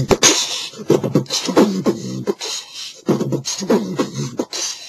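A man making rhythmic wordless vocal sounds, beatbox-style, in short pitched phrases about half a second apart.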